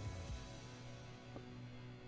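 Quiet background music with held tones, and a single faint click partway through.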